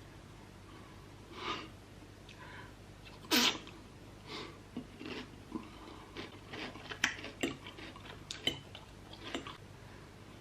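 Close-miked mukbang eating sounds from someone eating spicy noodles and chicken: one short, loud, sneeze-like burst about three seconds in, then a string of quick mouth clicks, smacks and chewing.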